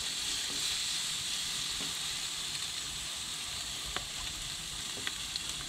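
Pink snapper frame, wings and fillets sizzling on a hot, oiled barbecue grill: a steady hiss, with a few faint ticks in the second half.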